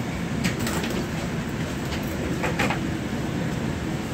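AirTrain JFK car running along its track, heard from inside the car: a steady low rumble with a couple of short rattles.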